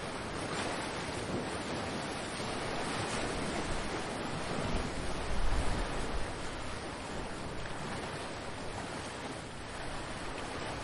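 Ocean waves washing in as a steady surf. About halfway through, a low rumble of wind buffets the microphone.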